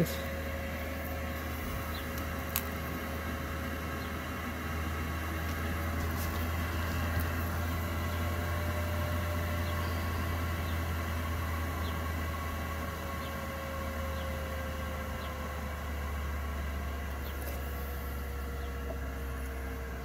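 Diesel air heater running, a steady fan hum with a whine; over the last several seconds the whine slowly falls in pitch as the fan begins to slow. This is the heater's shutdown cycle after being switched off.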